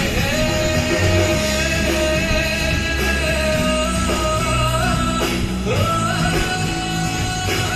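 Background music: a rock-style song with a singer holding long notes over guitar, bass and drums.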